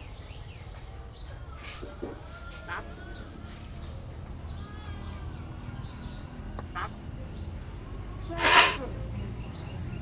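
Common hill mynas calling: scattered soft whistles and clicks, then one loud, harsh squawk about eight and a half seconds in.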